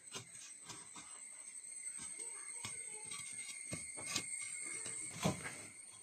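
Fired clay bricks being set down and shuffled into place on a floor: scattered light knocks and scrapes of brick on brick and floor, with one louder knock about five seconds in.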